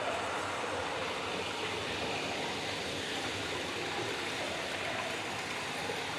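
Dense, steady rushing noise with no clear pitch or beat, heard as part of an electroacoustic sound-art piece.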